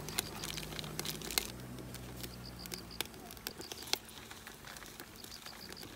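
Dense, irregular crackling and popping from a wood fire burning in a homemade stainless-steel rocket stove, with a wok of soup cooking on top. A short run of high chirps comes twice, about halfway through and near the end.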